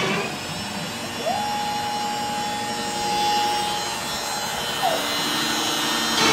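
A hobby CNC router drilling holes in an MDF spoilboard: the router spindle runs steadily while the stepper motors whine through a move between holes. The whine rises about a second in, holds one tone for about three seconds, and falls away near five seconds.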